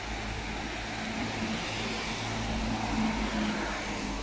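Steady hiss of rain on a city street, with a low steady hum of road traffic and rumble beneath it.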